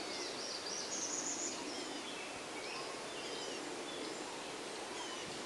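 Gray Catbird singing a jumbled string of short, varied chirps and whistles, opening with a buzzy trill, over a steady background hum.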